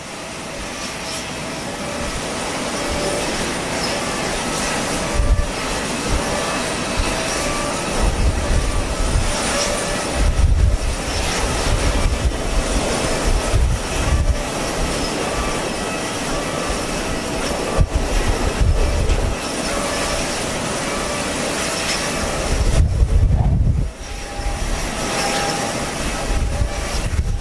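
Airliner engines running with a steady whine, growing louder over the first few seconds, while gusts of strong typhoon wind buffet the microphone with low rumbles every few seconds.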